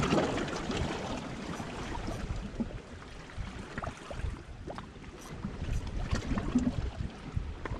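Sea water lapping and sloshing against shoreline rocks, with wind rumbling on the microphone.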